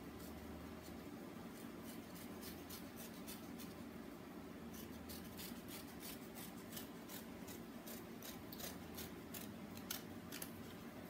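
Scissors snipping paper in a faint, irregular run of quick cuts, denser from about two seconds in.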